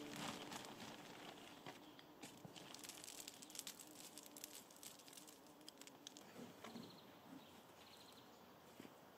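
Near-quiet garden background with faint rustling and scattered light ticks from hands working a garden bed.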